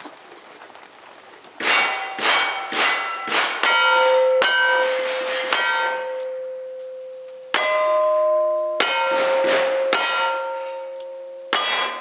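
Single-action revolver shots in quick succession starting about a second and a half in, each hit answered by steel plate targets ringing with long, bell-like tones; after a short lull the ringing is renewed by a second run of shots about halfway through.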